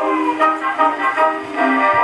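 A disc record playing on a circa-1906 Columbia BD "Majestic" disc graphophone through its mahogany speartip horn: instrumental music, thin and narrow-ranged, with no deep bass and no high treble.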